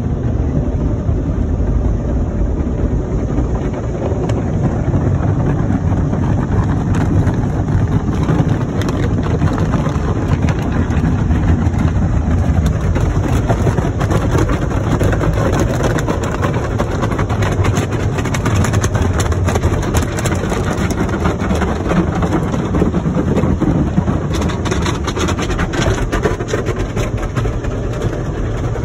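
Automatic tunnel car wash heard from inside the car's cabin: a steady loud rumble of the wash machinery and water spray, with a dense rapid slapping of the spinning cloth brushes on the body through the middle stretch.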